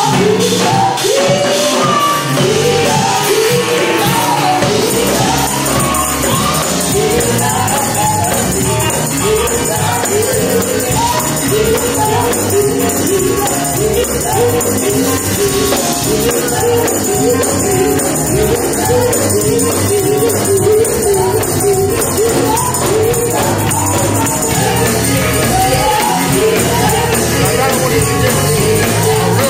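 Gospel music: a woman singing lead into a microphone with other voices and accompaniment, sung lines running continuously at a steady level.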